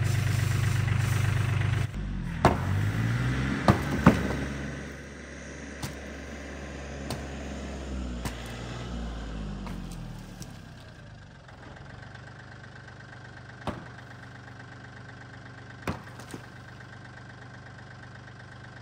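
An engine idling steadily, loud for the first two seconds and then much lower, with a string of sharp knocks of a hammer banging old shed boards loose, the loudest two to four seconds in.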